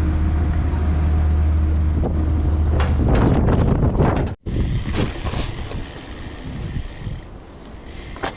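A ferry's engine running with a steady low hum, then clattering noise, a sudden break, and wind rushing over the microphone.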